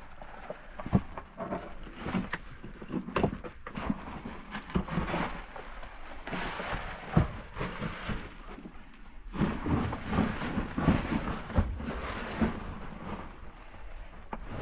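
Boots crunching and scraping over loose broken rock on a narrow mine tunnel floor, with clothing rustling. The footfalls come irregularly, as scattered knocks among longer stretches of gritty scraping.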